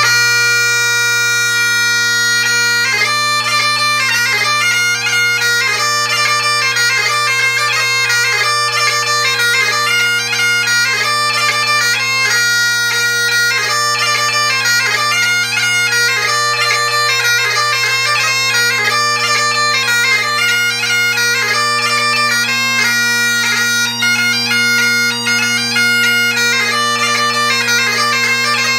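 Great Highland bagpipe played solo: the drones sound a steady bass chord throughout while the chanter holds one note for the first few seconds, then starts a quick, ornamented dance tune from a set of hornpipes and a jig.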